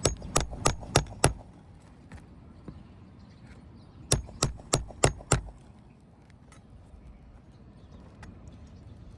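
Two quick runs of about five sharp hammer strikes each, a few seconds apart, as the roofing nails holding the asphalt shingles are worked out.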